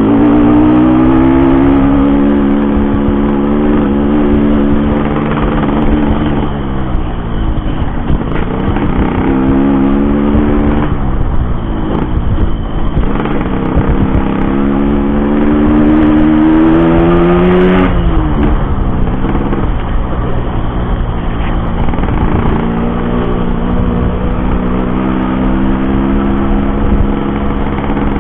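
Yamaha RX-King two-stroke single-cylinder motorcycle being ridden through its really loud aftermarket racing exhaust, the revs climbing and falling through the gears, with a sudden drop in pitch at a gear change about two-thirds of the way through.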